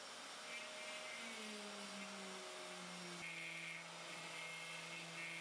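Carvera Air desktop CNC's spindle running faintly as a flat end bit mills an epoxy resin block, a steady hum whose tones drift slowly down in pitch, with a single click about three seconds in.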